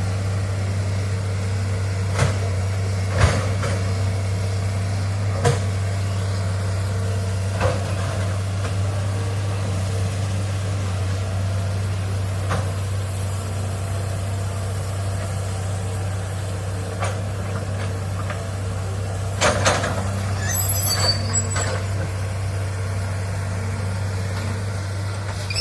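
Hitachi excavator's diesel engine running steadily, with a few short sharp knocks and clanks scattered through it and a brief hiss about three-quarters of the way in.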